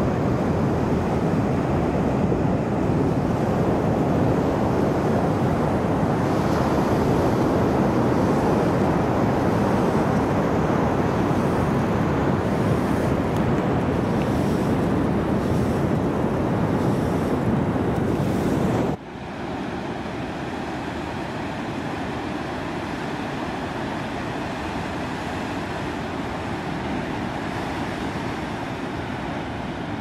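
Ocean surf breaking below, mixed with wind on the microphone: a steady rush. About two-thirds of the way through it cuts off abruptly to a quieter, steady rush.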